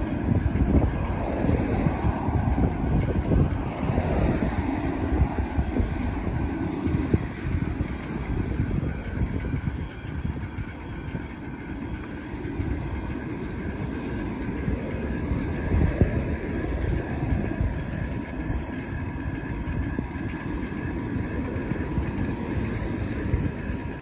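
Road noise from a moving vehicle: a steady, heavy low rumble with a faint steady whine above it.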